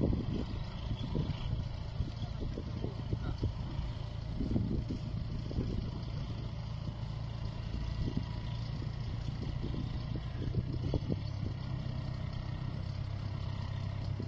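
Diesel engine of a telehandler idling steadily with a low hum, with uneven low rumbling surges over it.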